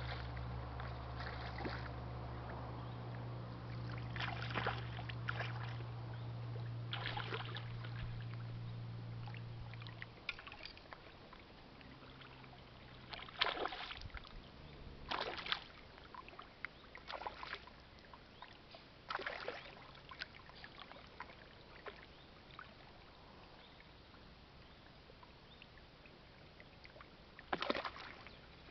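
A hooked asp splashing at the surface several times as it is played on a fly rod, sharp separate splashes with gaps of quiet water between. A steady low hum runs underneath for the first third and then stops.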